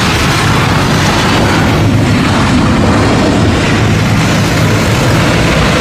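Boeing 737 airliner's jet engines during touchdown and rollout on the runway: a loud, steady rush of jet noise.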